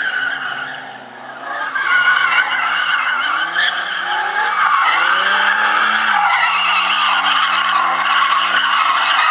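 Nissan S12 Gazelle drifting: its engine revs rise and fall under a loud, continuous tyre squeal that sets in about two seconds in.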